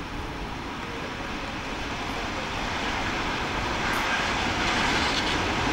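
Approaching passenger train hauled by an E402A electric locomotive, running into the station: a steady rolling rumble that grows gradually louder as it nears.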